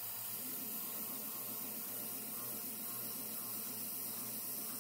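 CNC mill spindle running as an end mill bores a dowel hole in a cast-aluminium crankcase, with a steady hiss from the spray nozzle aimed at the cut.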